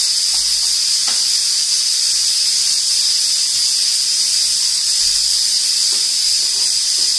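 Cumin seeds sizzling in a spoonful of hot oil in a small tadka pan, the first stage of a tempering: a steady high hiss.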